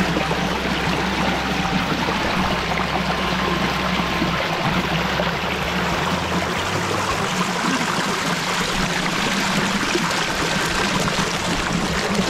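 Shallow mountain stream rushing and splashing over rocks: a steady, loud water noise.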